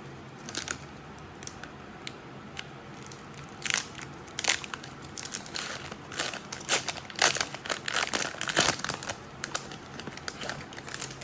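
Foil wrapper of a Pokémon trading-card booster pack crinkling and crackling as it is worked open by hand. There are scattered sharp crackles at first, which grow dense and loud from about four seconds in.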